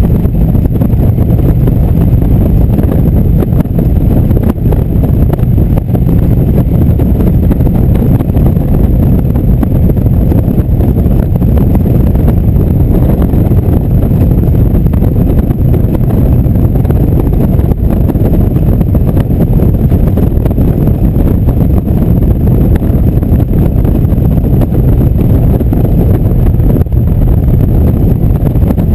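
Indian motorcycle's V-twin engine running at a steady cruising speed, mixed with a loud rush of wind over the microphone; no shifts or revs, just an even drone.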